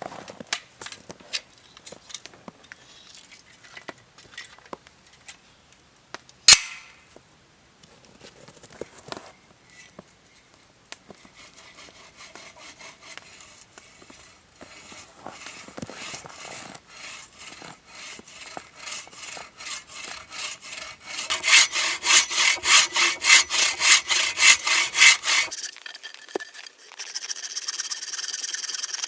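Hand saw cutting through wood, its strokes building into loud, regular back-and-forth strokes of about three a second in the second half. A single sharp knock sounds about six seconds in, and near the end the sawing gives way to steadier rasping.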